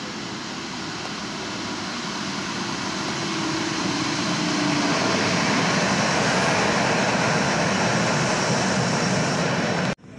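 Stadtbahn light-rail train running into an underground station, its rumble and wheel noise growing louder over the first few seconds as it comes out of the tunnel, then holding steady as the cars pass along the platform. The sound cuts off abruptly near the end.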